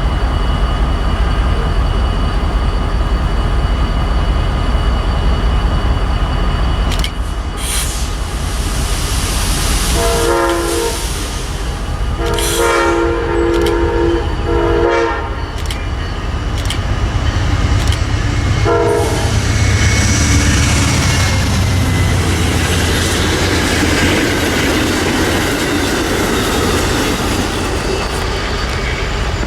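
Norfolk Southern diesel freight train passing with a steady low engine rumble. Its multi-chime air horn sounds in several blasts about a third of the way in, the last one short, followed by the rushing, clattering noise of the rolling cars.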